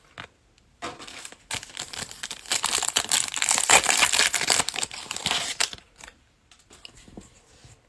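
Foil wrapper of a 2021 Playoff football trading card pack being torn open and crinkled in the hands. It starts about a second in, is loudest in the middle and stops about two seconds before the end, leaving only faint rustles.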